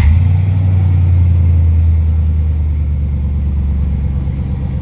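Chevrolet Silverado pickup engine that has just caught after cranking, running at a steady fast idle with a low, even hum that eases slightly as it settles.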